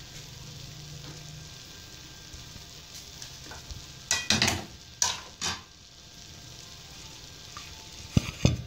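A pot of sweet rice sizzling with a steady soft hiss as it cooks over the stove flame. A few sharp clatters of kitchenware come about four to five seconds in, and two more near the end.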